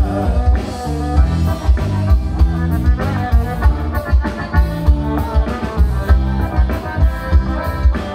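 Live band playing an instrumental passage of a gaúcho song: bass and drums keep a steady beat under a melody line.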